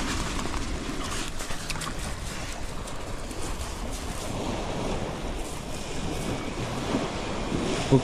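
Sea surf washing on the shore, a steady rush, with wind buffeting the microphone.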